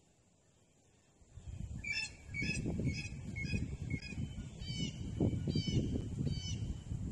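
A bird calling over and over, short nasal calls about two a second, over a low rustling that starts about a second in.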